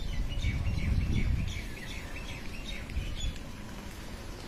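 Small birds chirping, a quick run of short high chirps that stops a little over three seconds in, over a low rumble that swells about a second in.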